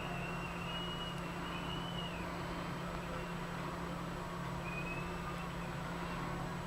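Steady low electrical hum under background hiss, with a few faint, short, high chirping tones now and then.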